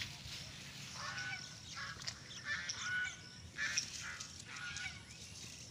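Birds calling again and again in short calls, one every second or so, over faint background noise.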